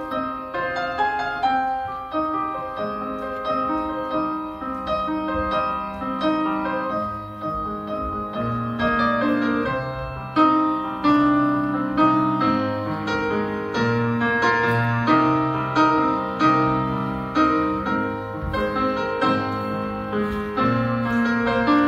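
Piano music, a steady flow of notes; lower bass notes join about halfway through, and the loudness swells with each beat.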